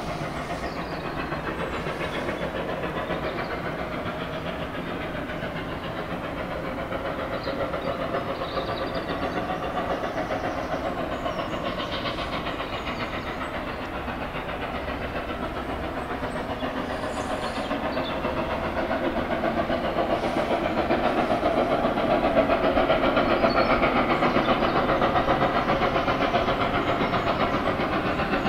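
Steam locomotive running: a continuous rush of exhaust and hissing steam with a rapid fluttering beat, growing louder through the second half.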